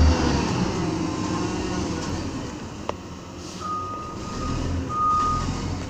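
Mack MR garbage truck's diesel engine running, with its reversing alarm giving two steady beeps in the second half. A single sharp click comes near the middle.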